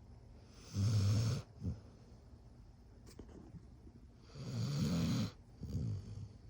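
Sleeping dog snoring: two long snores about three and a half seconds apart, each followed by a shorter breath.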